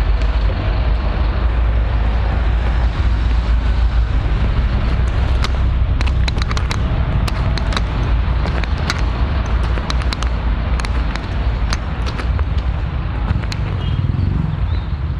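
Steady low rumble of a public transport vehicle in motion, with a run of sharp clicks and rattles from about five seconds in; the sound grows quieter near the end.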